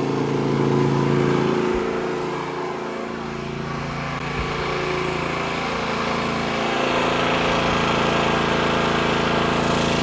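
Predator 9500 inverter generator's 459cc engine running steadily under heavy load, about 53 amps across its two legs. Its note eases off slightly a few seconds in, then builds back up.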